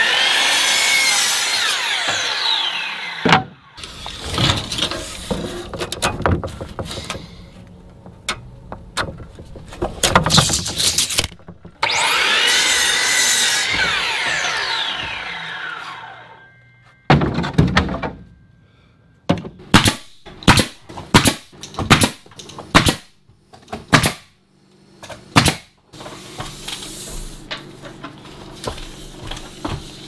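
Sliding compound miter saw crosscutting pine boards twice, each cut ending with a falling whine as the blade spins down, followed by a run of sharp wooden knocks as boards are handled.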